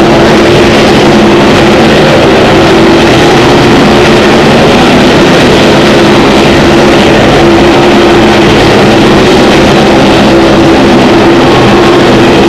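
A loud, steady engine-like drone with a constant hum that does not change throughout.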